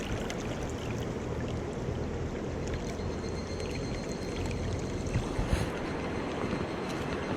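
Mountain stream running steadily: a continuous rush of flowing water with a low rumble underneath.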